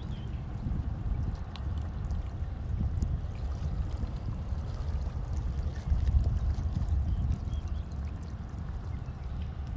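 Wind rumbling on the microphone, rising and falling in gusts, with water lapping against the canal bank.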